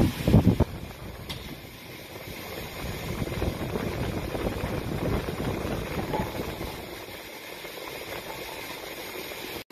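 Rushing, buffeting air noise on the microphone, plausibly from the standing electric fan blowing right beside it. A few loud bumps come in the first second.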